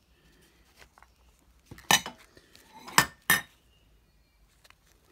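Three sharp metallic clinks with a short ring from a metal hand tool handled at the lamp wiring: one about two seconds in, then two in quick succession about a second later.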